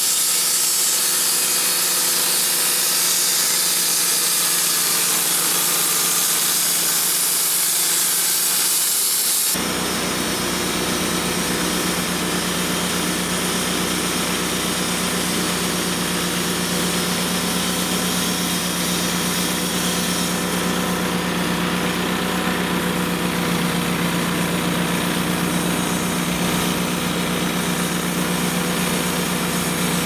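Wood-Mizer LT35 portable bandsaw mill sawing white oak: the engine runs steadily under load while the band blade cuts through the log with a steady hiss. About ten seconds in, the sound changes abruptly to a closer, lower engine hum with less hiss.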